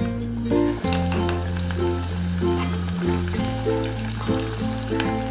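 A rice-and-cheese ball deep-frying in a small saucepan of hot oil, with a steady crackling sizzle and bubbling. Light background music with a steady bass line plays underneath.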